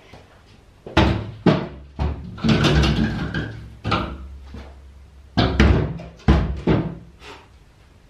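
An old rusty steel boiler-room door and its heavy latch being worked: a run of loud metallic bangs and clanks, with a rattling stretch in the middle and a second cluster of bangs near the end.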